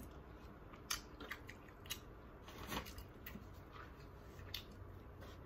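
Quiet eating sounds: a handful of short, sharp clicks and crunches at irregular intervals from chewing and handling food.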